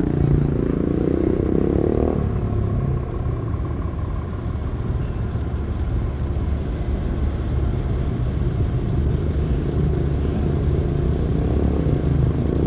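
Steady low rumble of a motor vehicle engine, with a pitched drone over it that stops about two seconds in.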